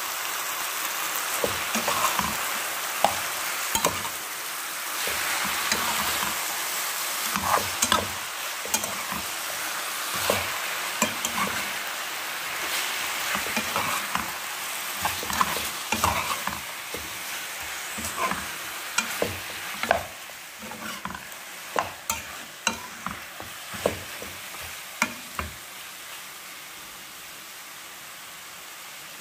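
Chicken pieces frying in hot oil with onions and garlic in a pan, sizzling steadily while a metal spoon stirs them, clinking and scraping against the pan. The sizzle quietens about two-thirds of the way through, and the spoon clinks stop near the end.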